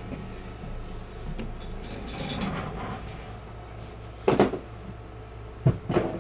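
Things being handled and set down on a desk: soft rustling, then sharp knocks about four seconds in and again near the end, over a steady low hum.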